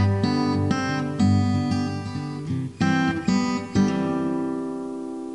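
Acoustic guitar music, chords strummed in a quick run; the last chord, about four seconds in, is left to ring and fade.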